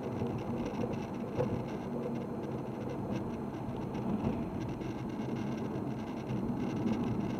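Steady low rumble of a running vehicle, with no distinct knocks or changes.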